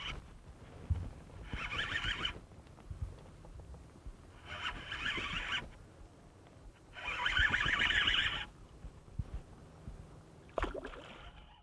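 Fishing reel whirring in three bursts of about a second each as a hooked largemouth bass is played in, with one short sharp sound near the end.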